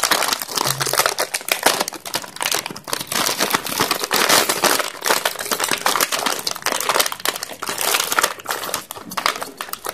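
Clear plastic hinge packet crinkling and rustling in the hands, in irregular crackles, as a soft-close cabinet hinge is pulled out of it.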